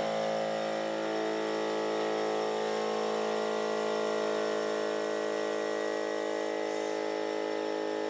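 12-volt cigarette-lighter air compressor running steadily, inflating a trailer tire that is leaking at its Flex Seal patch.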